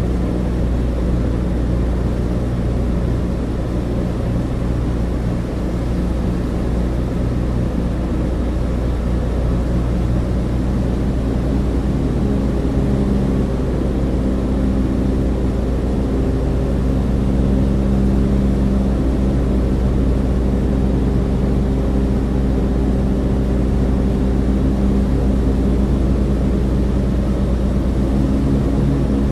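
Douglas DC-3 cabin: the steady deep drone of its two radial piston engines and propellers, heard from inside the fuselage. The engine note grows slightly louder and fuller about halfway through.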